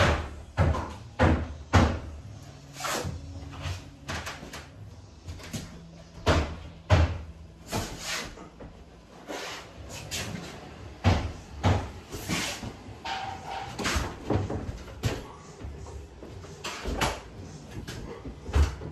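Wooden kitchen cabinets knocking and thumping as they are handled and fitted: irregular sharp knocks, about one or two a second.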